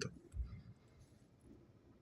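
Near silence in a pause between speech, with one faint low thump about half a second in.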